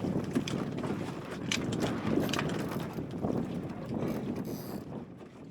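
Wind buffeting the microphone in gusts, with short clicks and knocks from a small plywood sailing dinghy and its rig as it sits in the water.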